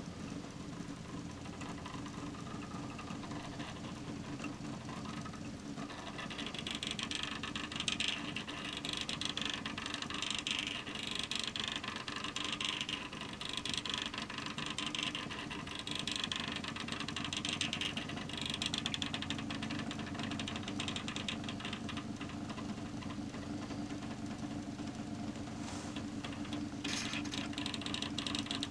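A K'NEX drawing machine's small motor and plastic gears whirring steadily. From about six seconds in, the marker tip scratches over the whiteboard with a hiss that swells and fades about once a second as the linkage sweeps it back and forth.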